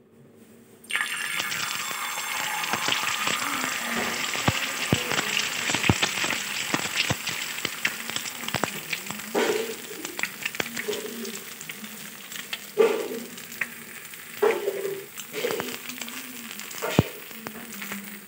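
Double-yolk egg hitting a hot oiled flat griddle about a second in, then sizzling and frying with many sharp pops and crackles of spattering oil. The sizzle starts abruptly and slowly dies down.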